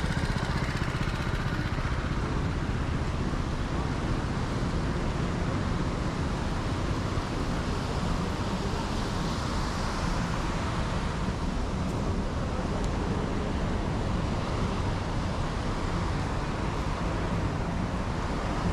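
Steady urban outdoor ambience dominated by road traffic, a continuous even rush of passing cars with distant voices mixed in.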